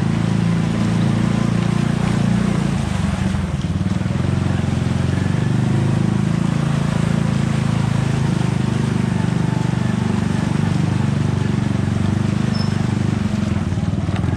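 A steady, unbroken engine-like drone with a hiss of noise over it.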